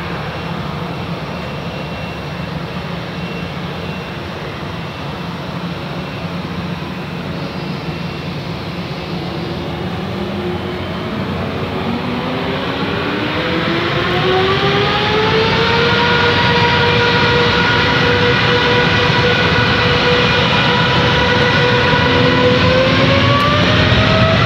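Rolls-Royce Trent 1000 turbofans of an ANA Boeing 787-8 throttling up for takeoff. A steady jet rumble runs through the first half. Then a whine rises, levels off for several seconds and starts climbing again near the end, getting louder as thrust comes up.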